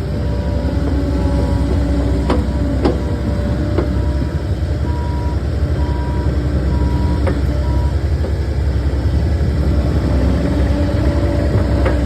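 Takeuchi skid steer's diesel engine running steadily, with a few sharp clanks. In the middle a series of evenly spaced beeps sounds for about three seconds.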